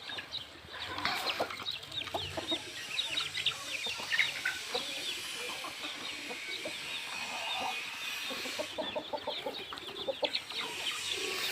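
A flock of chickens clucking while feeding, with a dense patter of short, quick ticks and chirps over it.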